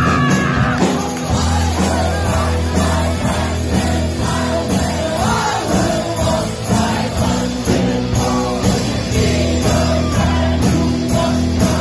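Rock music: a band playing with singing over sustained low bass notes.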